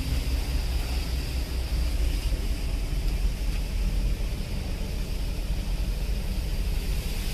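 Steady rumble and hiss of wind buffeting the microphone on a vessel under way at sea, with the boat's engine and rushing water underneath.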